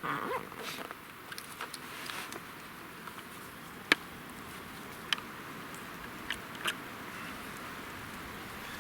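Skis sliding and crunching over snow, with a few sharp isolated clicks, likely ski pole tips striking the crust.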